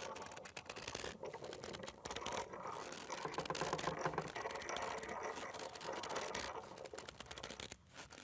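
Wooden pendulum-and-pulley harmonograph rattling and clicking as it moves, a dense run of fine clicks that grows busier in the middle and thins out near the end.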